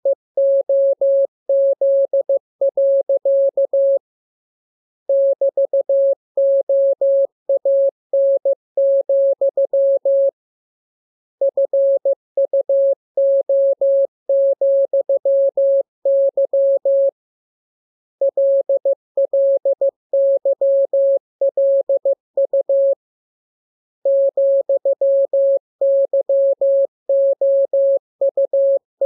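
Morse code (CW) keyed as a single steady mid-pitched tone, short and long beeps sent in runs of about six seconds with a pause of about a second between runs.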